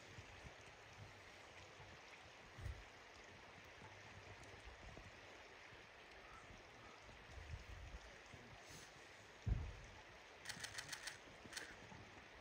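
Faint, steady hiss of a flowing river, with a few short low thumps and a quick run of clicks about ten seconds in.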